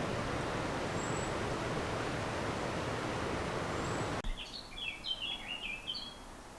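Steady outdoor background noise that cuts off abruptly about four seconds in. A small bird then chirps a quick run of short, falling notes.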